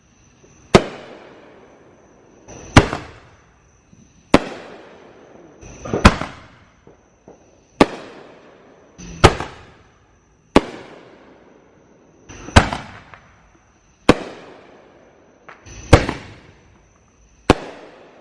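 Consumer fireworks going off in a steady series: about eleven loud bangs, one every one and a half to two seconds, each trailing off in a crackle.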